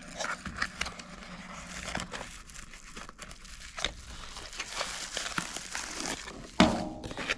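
Cardboard product box and plastic bubble-wrap packaging crinkling and rustling as they are opened and handled, with many small clicks and a louder knock near the end.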